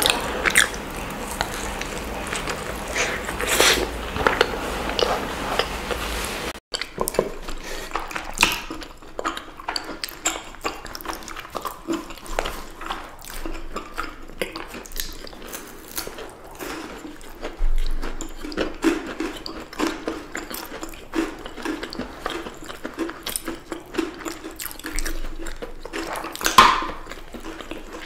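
Close-miked ASMR eating: a fried snack dipped into thick sauce and bitten, then crisp bites and chewing of chocolate bars, KitKat wafers and cookies, full of short crackles and wet mouth sounds. One sharp loud crunch near the end.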